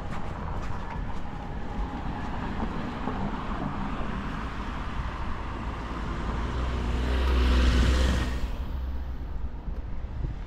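A road vehicle passes close by, its engine and tyre noise growing louder to a peak about eight seconds in and then fading, over steady street traffic noise.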